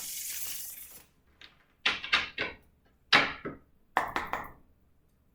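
Tarot deck shuffled by hand: a brief flutter of cards, then a run of quick card slaps and taps in three short clusters.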